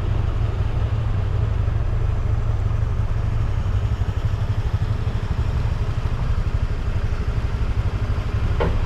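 Scooter riding along, its small engine running steadily under a low, rough rumble of wind on the microphone.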